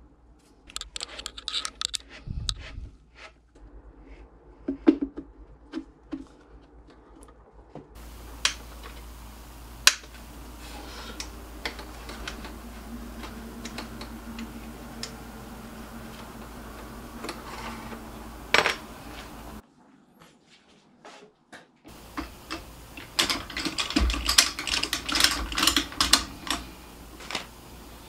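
Irregular clicks, taps and light rattles of small metal parts, cable and tools being handled while working on a carbon mountain bike frame in a bike stand. A steady hiss lies under the middle stretch, and the clicks come thickest near the end.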